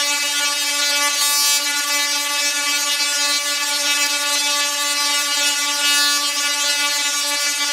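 Large dual-resonant solid-state Tesla coil (DRSSTC) firing, its sparks giving a steady, even-pitched buzz at the interrupter's rate, with a brief burst of hiss about a second in.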